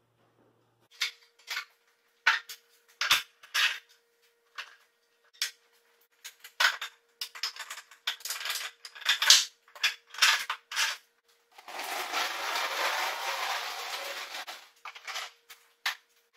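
Irregular wooden knocks and clatter as tools and wooden pieces are set down and fitted on a workbench, followed by a scraping, rushing noise lasting about three seconds and a few more knocks.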